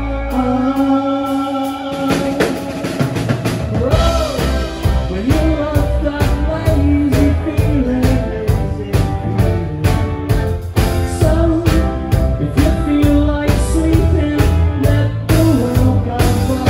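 Live rock band playing: electric guitar, bass guitar and drum kit, with a male lead vocal. The bass is thin for the first few seconds, and the full band comes back in about four seconds in.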